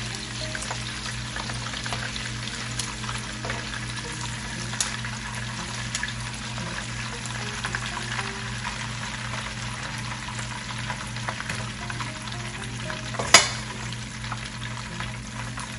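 Shrimp frying in bubbling garlic oil: a steady sizzle with scattered crackling pops as they are lifted out with tongs into a metal mesh strainer. One sharp metallic clink near the end.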